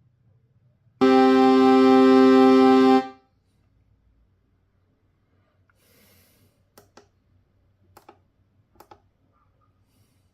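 A synthesizer preset from the Drift Theory Maschine expansion playing one held note, bright with many overtones, for about two seconds before it stops. Later come a few faint clicks in pairs.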